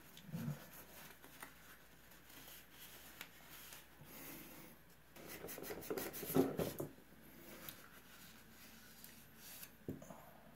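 A cloth rag rubbing and wiping a small metal outboard carburetor body, with soft rustling and a few light knocks as the part is turned in the hands. It gets busier and louder for a moment about six seconds in.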